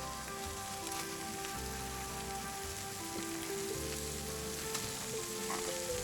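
Background music of slow, held notes that shift in pitch every second or so, over a steady sizzling hiss.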